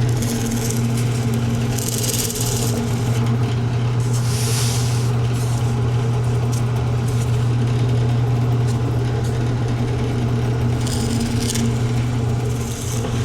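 Drill press motor running with a steady low hum, with a few short hissing bursts over it.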